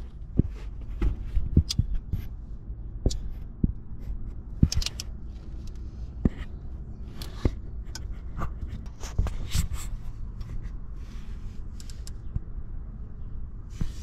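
Hand-held camera handling noise: irregular clicks, knocks and rubbing as the device is moved about close to the engine, over a steady low rumble.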